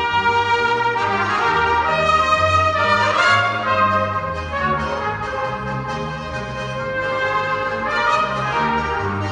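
Live Swiss folk band music: two trumpets playing the melody over button accordions, with double bass notes changing about twice a second. About three seconds in, a note glides upward.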